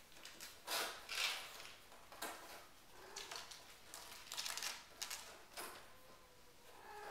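Kittens scuffling in play: an uneven run of short scratchy rustles and scrapes, claws catching on cardboard and sisal and paws skittering on a wood floor, the loudest about a second in. Near the end a faint chirping call from a cat starts.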